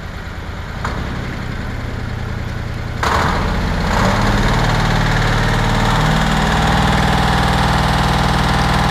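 Mini pocket bike's small engine running, revved up about three seconds in and held at higher revs as the bike is ridden.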